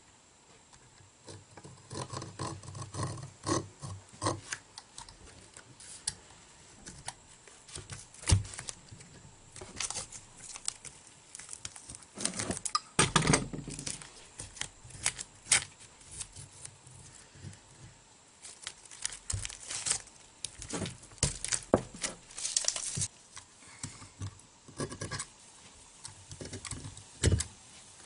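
Masking tape being pulled off the roll, torn and pressed onto a pipe wrench, heard as irregular crackles and rips mixed with small clicks and knocks from handling the tool, with a longer rustling stretch about halfway through.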